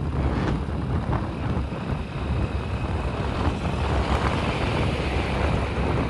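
Wind buffeting the microphone on a moving motorcycle, with the motorcycle's engine running underneath in a steady rumble.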